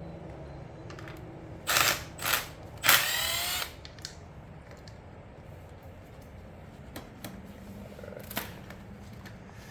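Three short whirring spins of a small mechanism, the last about a second long, with the pitch bending as it spins up and down, over a faint low hum.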